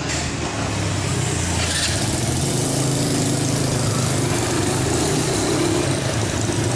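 Street traffic with a motorbike engine running close by: a steady low engine note over a constant wash of street noise.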